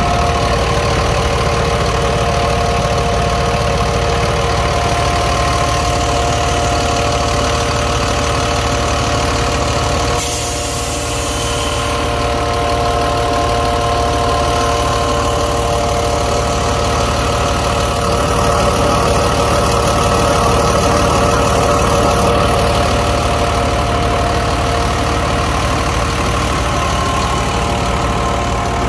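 A jet fuel truck's engine idling steadily with the hood open, a constant multi-pitched hum over a low rumble. A brief hiss comes about ten seconds in.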